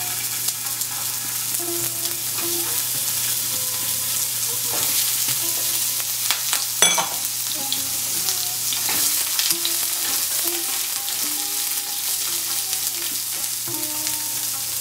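Eggplant pieces sizzling in hot mustard oil in a nonstick frying pan, a steady hiss with a few sharp clicks and taps as pieces are dropped in and turned with a wooden spatula.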